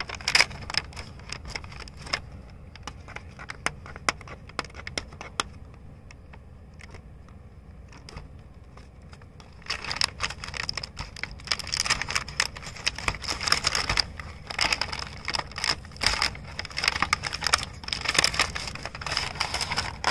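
Cardboard toy box and its plastic packaging being handled and opened: the flap scraping and clicking at first, then denser, louder crinkling and crackling from about halfway through as the box is pulled off the plastic tray.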